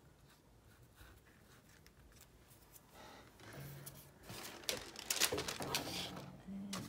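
Paper and card being handled: a postage stamp pressed down onto a glued cover, with rustling, crinkling and light taps. It starts about halfway in and grows louder towards the end.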